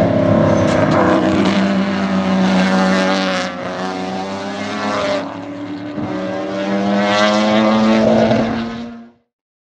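Sports sedan race cars' engines under racing load as two cars pass through corners, the note rising and falling with throttle and gear changes, with drops in level about three and a half and five seconds in. The sound fades out shortly before the end.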